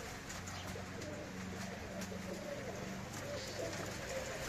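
Budapest Highflyer pigeons cooing, a few low drawn-out coos one after another.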